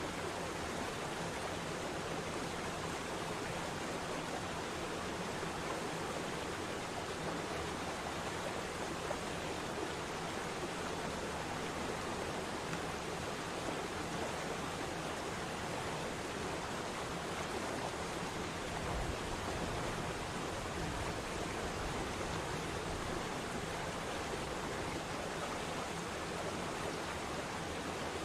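Waterfall water rushing in a steady, even roar, with a deeper rumble coming in about two-thirds of the way through.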